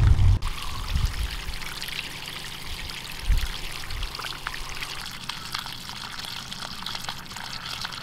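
Water gushing from the end of a sump pump's PVC discharge pipe and splashing steadily into a muddy puddle: the pump is emptying the flooded pit. A loud low rumble cuts off about half a second in, and there is a dull thump a few seconds later.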